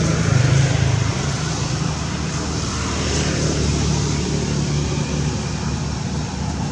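Steady low engine rumble, like a motor vehicle running or passing, a little louder in the first second and then easing slightly.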